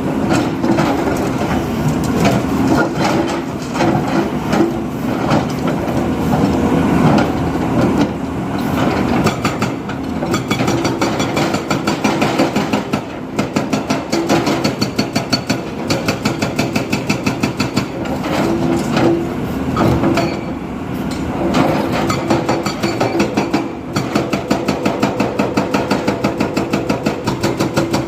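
Heavy diesel construction machinery running, with a steady drone and a rapid, even mechanical clatter that settles into a regular beat of a few knocks a second in the second half.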